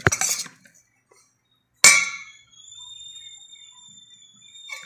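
Steel ladle knocking against a stainless steel bowl of cooked rice: a short knock at the start, then a louder clang about two seconds in that leaves the bowl ringing with a high, steady tone for nearly three seconds.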